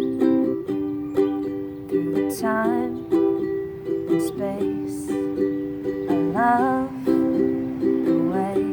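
Music on a small plucked string instrument, strumming and picking chords in a steady rhythm, with a short upward slide of notes every few seconds.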